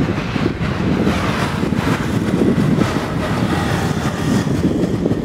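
Steady outdoor street noise: a low rumble of road traffic mixed with wind on the microphone.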